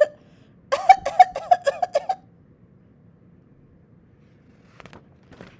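A woman's voice making a quick run of about eight short, high-pitched sounds, like a tiny squeaky cough or a giggle. A few faint ticks follow near the end.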